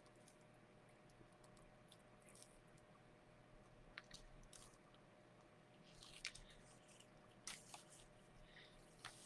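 Faint crinkling and soft clicks of damp transfer paper being peeled off a slate coaster, a few scattered crackles that grow more frequent in the second half.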